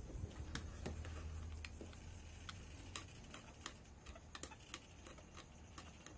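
Faint, irregular little ticks and scrapes of a cutter blade scraping the coating off the traces on the LCD panel's flex cable to expose the copper, a few clicks a second over a low steady hum.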